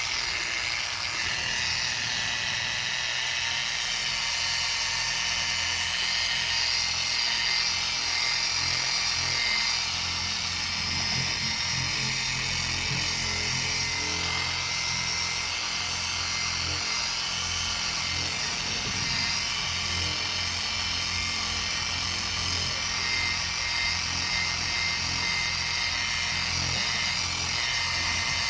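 Small power sander running steadily with a high whine, a 1200-grit sanding disc working on a plastic headlight lens to cut off its failed, weathered clear coat.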